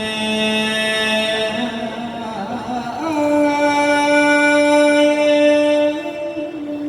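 Thai royal barge song (kap he ruea) sung in long drawn-out notes: a wavering note, then a higher note held steadily from about three seconds in.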